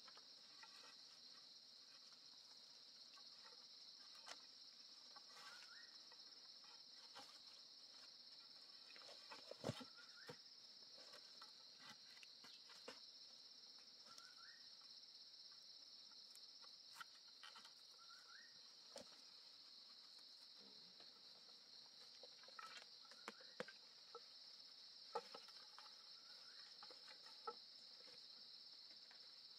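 Faint steady high-pitched drone of insects, crickets or cicadas, with scattered light knocks and clicks of wooden poles being handled and tied, a little louder about ten seconds in and again near twenty-five seconds. Now and then a short faint rising chirp.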